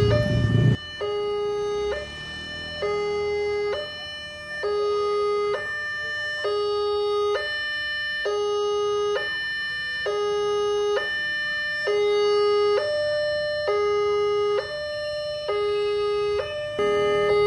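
Railway level-crossing warning alarm: an electronic two-tone signal alternating between a low and a high note, each held a little under a second, sounding while the barriers close for an approaching rail vehicle. Low traffic noise cuts off in the first second.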